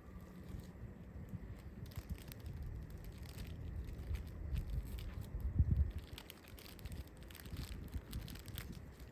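Wind rumbling on the microphone, strongest in a gust a little past the middle, with scattered crinkling and rustling of handled material throughout.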